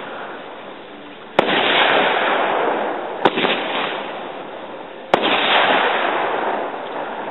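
Backyard consumer aerial fireworks going off: three sharp bangs about two seconds apart. The first and last are each followed by a couple of seconds of crackling hiss that fades away.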